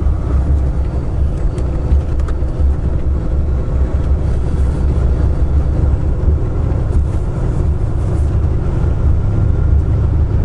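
Semi-truck cruising at a steady speed, heard from inside the cab: a constant low rumble of engine and road noise.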